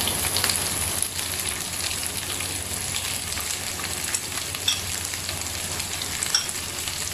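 Chicken pieces and curry leaves frying in coconut oil, a steady sizzle with a few faint crackles. The frying is late in the process, with little oil left in the pan.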